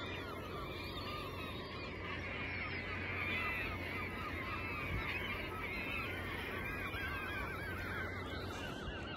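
A large flock of seagulls feeding over the water, many cries overlapping into a continuous clamour, over a steady low rush of noise.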